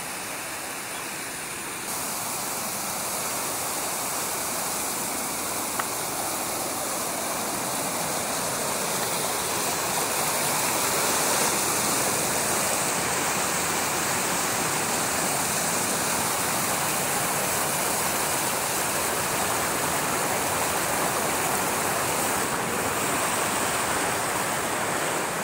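Mountain stream cascading over rocks, a steady rushing of water that grows louder over the first ten seconds or so and then holds.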